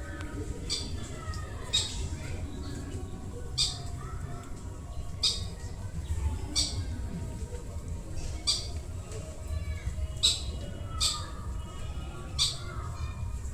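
An animal in the garden giving short, sharp, high-pitched squawking calls, about nine of them at uneven intervals of one to two seconds, over a steady low rumble, with fainter chirps in between.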